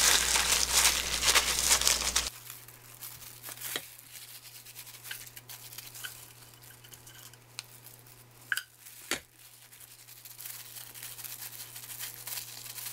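Thin plastic glove crinkling as rice is pressed firmly into a plastic triangle mold for about the first two seconds. After that it is much quieter, with a few light knocks and clicks.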